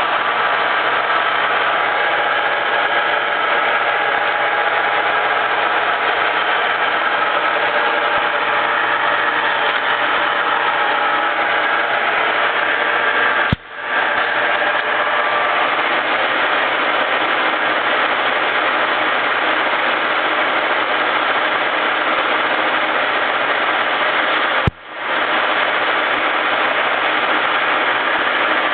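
Tos Trencin SN 40 B lathe running under power: a steady, loud mechanical whir with many fine tones from the spindle drive. It drops out suddenly twice, about a third of the way in and again near the end, and picks straight back up each time.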